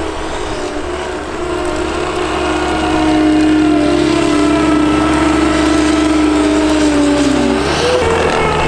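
Compact track loader's diesel engine working under load as it pushes snow with a blade attachment, getting louder a couple of seconds in and changing pitch near the end.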